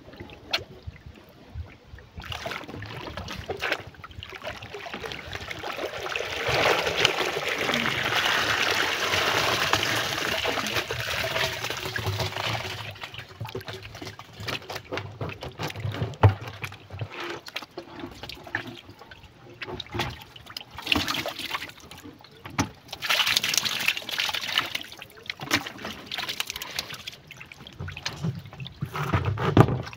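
Water rushing and draining out of a rubber bucket fish trap as it is hauled up from the river, a loud pour lasting several seconds, then trickling and splashing. Scattered knocks and a second shorter rush of water come later.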